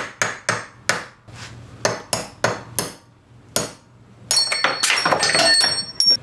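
Hammer striking a punch to drive the old bearing race out of a 1965 Ford Falcon front drum-brake hub held in a vise: about nine sharp metal-on-metal blows in uneven quick succession. After a short pause, a louder ringing metallic clatter lasts about two seconds near the end.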